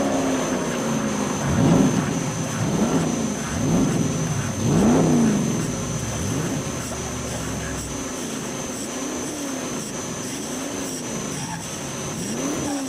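Metal lathe taking a turning cut on a steel workpiece with a carbide-insert tool: a cutting tone that rises and falls in pitch about once a second over the running lathe, with a steady high whine throughout.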